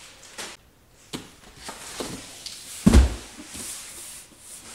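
A heavy cardboard box holding a 12-inch car subwoofer is set down on a table with one dull thud about three seconds in, amid a few lighter knocks and cardboard rustling as it is shifted into place.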